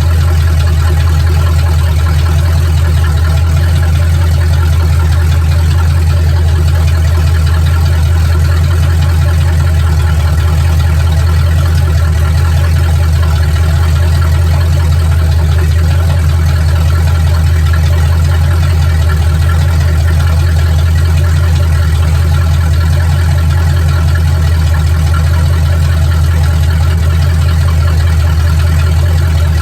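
Truck engine idling steadily, a deep, even running with no change in speed.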